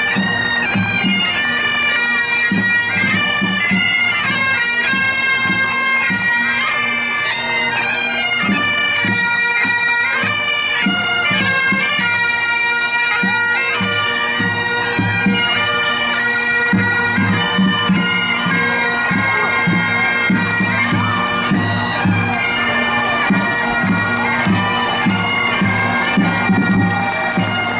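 Pipe band playing: Great Highland bagpipes carry a stepping melody over their steady drones, with drums beating time. The drum strokes come through more strongly in the second half.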